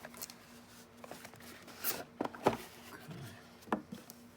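Unboxing handling sounds: the packaging and the device being pulled out and handled, giving scattered light clicks, knocks and rubbing, with the loudest knock about two and a half seconds in. A faint steady hum runs underneath.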